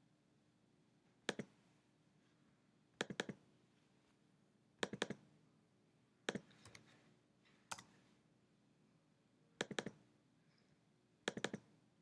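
Computer mouse clicking: about seven bursts a second or two apart, some single clicks and some quick double-clicks, as folders are opened one after another.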